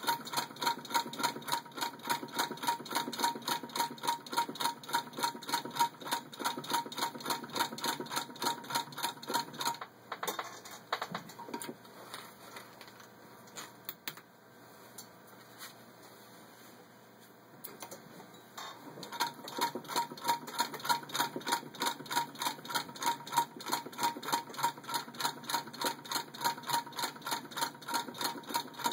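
A 1914 Singer 66-1 sewing machine head turned by hand at the handwheel, stitching through six layers of denim: an even, rapid clicking of the needle and hook mechanism. The clicking pauses for several seconds in the middle, then resumes at the same pace.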